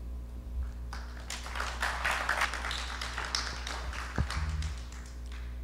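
Faint scattered taps and rustling over a steady low electrical hum, with a dull thump about four seconds in.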